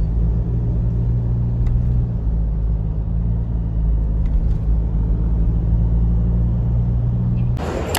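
Steady low rumble of a car driving along a city road: engine and road noise holding one even drone, which cuts off abruptly near the end.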